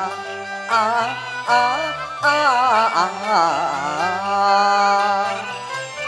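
Cantonese operatic song (yuequ) music: a high melody line wavering and sliding in pitch with wide vibrato, over a traditional Chinese instrumental ensemble.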